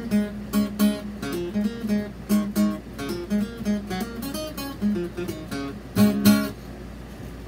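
Acoustic guitar being strummed in a loose rhythm, ending with two loud strums about six seconds in, after which the playing stops.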